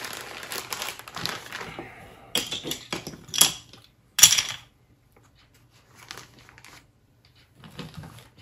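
Plastic bags crinkling and rustling as they are handled, with three sharp, louder crackles in the middle, then only faint rustles.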